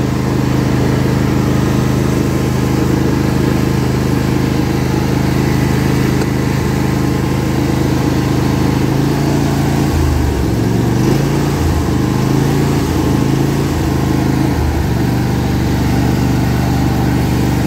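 A John Deere D140 ride-on lawn tractor's engine running steadily while the tractor is driven. Between about ten and fifteen seconds in, its note dips and wavers several times, then settles again.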